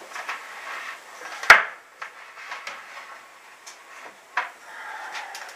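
Rustling of cloth against the microphone as the camera is handled, with one sharp, loud knock about a second and a half in and a lighter knock a few seconds later.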